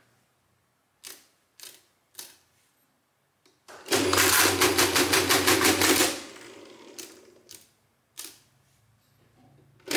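Rheinmetall SASL electric mechanical calculator: three clicks as keys are set on its keyboard, then its electric motor drives a machine cycle of about two seconds, a fast, even mechanical clatter over a low hum. A few more key clicks follow as the next number is set.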